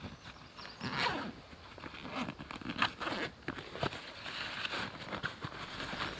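Zipper on a hiking backpack being opened in a few short, rasping pulls, with nylon fabric rustling as a compartment is emptied.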